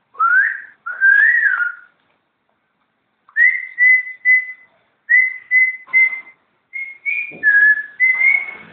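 Quaker parrot whistling: two rising whistled phrases, then after a short pause a run of short, even whistled notes at about two a second.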